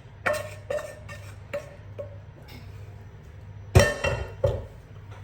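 A kitchen utensil knocking and clinking against a pan and bowl as cooked chicken is tipped in: a handful of separate clinks, the loudest about four seconds in, over a low steady hum.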